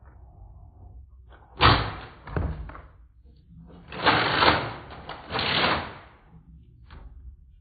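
Nerf foam-dart blaster firing: a sudden thump about one and a half seconds in that dies away, then two longer rushing bursts a little later.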